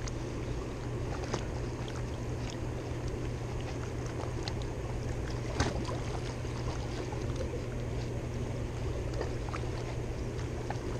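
Steady rush of turbulent water in the tailwater below a hydroelectric dam, with a constant low hum underneath. A few light clicks come through, the sharpest a little past halfway.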